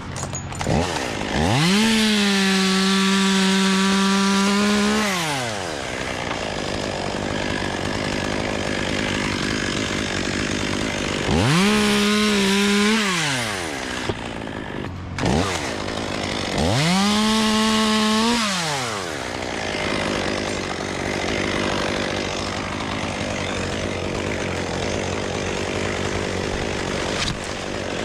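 Chainsaw cutting magnolia wood, run up to full throttle three times. Each time it climbs to a steady high whine held for two to four seconds, then drops back down.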